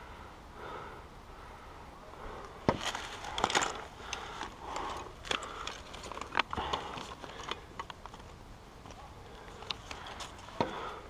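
Irregular sharp clicks, knocks and rustling of gear being handled and shifted as a player moves crouched behind a wooden wall. The knocks are busiest a few seconds in, and one last knock comes near the end.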